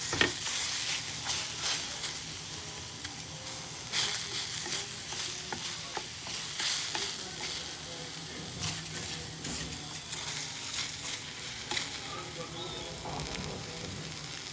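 Food sizzling in a frying pan, with frequent clicks and scrapes of a utensil stirring it.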